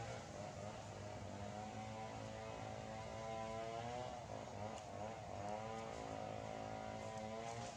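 Faint engine running steadily, its pitch wavering up and down, over a low steady hum.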